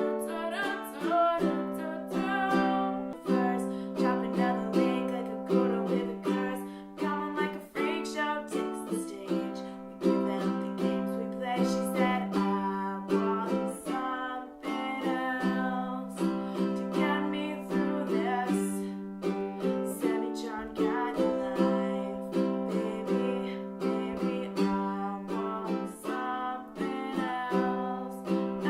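Acoustic plucked string instrument playing a continuous run of picked notes, each note ringing and decaying.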